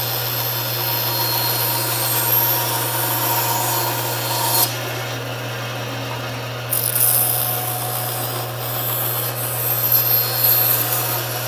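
Band saw running with a steady motor hum, its blade cutting a small triangular piece. The higher cutting noise drops away for about two seconds in the middle while the saw keeps humming, then resumes.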